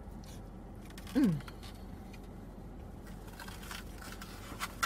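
Mouth-closed eating sounds over a steady low hum. About a second in comes one short hummed 'mm' that falls in pitch, and scattered light clicks follow in the last couple of seconds.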